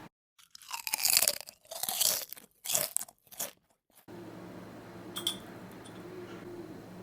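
Crunching of crisp food in four or five short bursts, then a low steady hum with a faint click.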